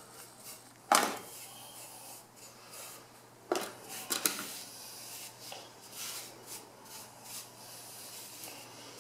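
Paintbrush and metal hook scraping soot and ash out of a wood stove's ash pit into a plastic dustpan: soft brushing and scraping, with a few sharp knocks of the tool about a second in and around four seconds in.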